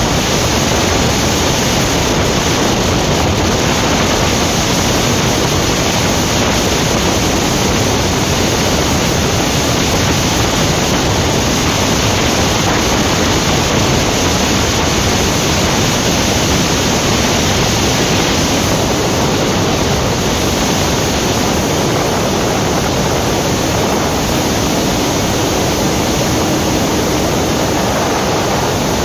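Loud, steady rush of wind over the microphone of a motorcycle at highway speed, about 85 to 110 km/h.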